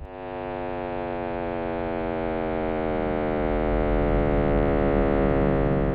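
Synthesized buzzing drone presented as the sound of the cosmic microwave background, rich in overtones and slowly falling in pitch as it swells louder. A deep rumble underneath grows stronger about halfway through.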